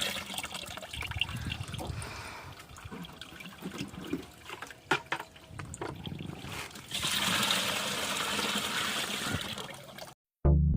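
Shallow pond water splashing and trickling as hands work through it catching fish, with a few sharp knocks about five seconds in and louder sloshing later on; the sound cuts off abruptly near the end.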